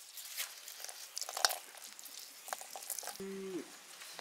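Lemon juice being squeezed out by hand over the turkey marinade: soft, wet squishing with small scattered clicks and taps. About three seconds in, a short steady low tone sounds, falling off at its end.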